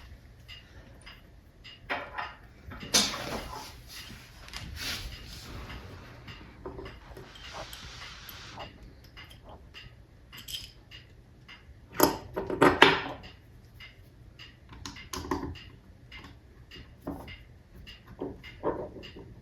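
Scattered light clinks, taps and knocks of screws, cabinet hardware and hand tools being handled, with a louder cluster of knocks about twelve seconds in.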